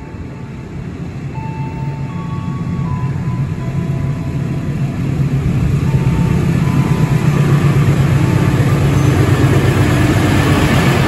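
Mainline diesel-electric locomotive approaching at the head of a container freight train, its engine drone growing steadily louder as it nears. The rush of wheels and cars builds as it draws alongside near the end.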